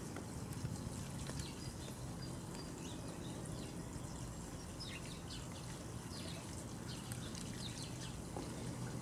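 Outdoor ambience with short bird chirps scattered throughout, over a steady low hum.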